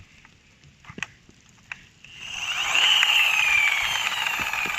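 Electric motor of a toy RC car whirring up to a loud, high whine a couple of seconds in, which then slowly drops in pitch. A few light clicks come before it.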